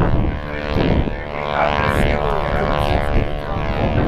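Propeller biplane's piston engine running steadily overhead, a continuous many-toned drone, with wind buffeting the microphone.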